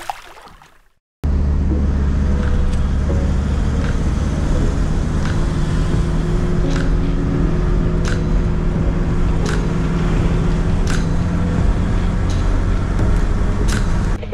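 Vehicle engine running steadily with road noise, heard from inside the cab while driving. It starts suddenly about a second in, with a light tick roughly every second and a half.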